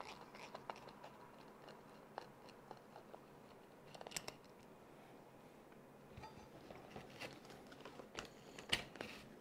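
Faint, scattered clicks and small plastic rattles as the wheel of a Traxxas Stampede 4x4 RC truck is taken off: a nut driver working the wheel nut at the hub, then the wheel handled and pulled free. A few sharper clicks come about four seconds in and again near the end.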